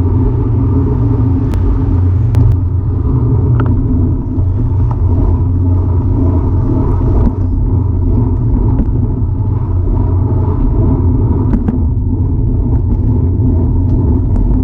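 Steady low rumble of wind buffeting the microphone, mixed with tyre and road noise from a Cinelli Pista fixed-gear bike being ridden, with a few faint clicks.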